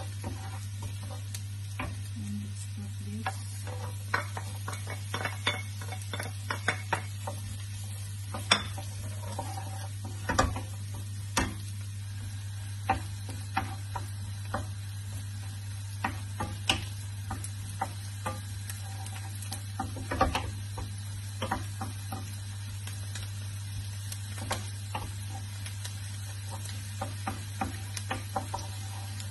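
Wooden spoon stirring chopped onion frying in butter in a non-stick pan, with irregular knocks and scrapes of the spoon against the pan over a steady sizzle. A steady low hum runs underneath.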